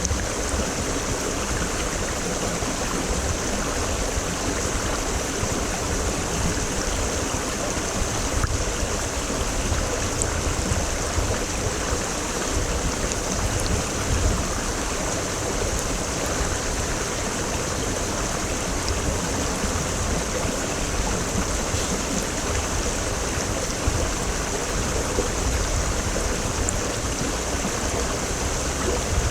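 Mountain stream (quebrada) rushing steadily over rocks, with an even rush of water and a low rumble.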